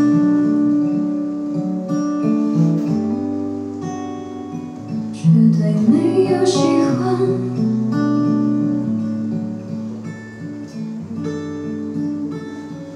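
Acoustic guitar playing slow, ringing chords, with a short sung phrase from a woman about six seconds in. The guitar grows gradually quieter toward the end.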